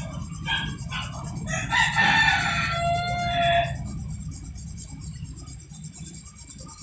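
A rooster crowing once: a single long call about two seconds in, lasting about two seconds, over a steady low background rumble.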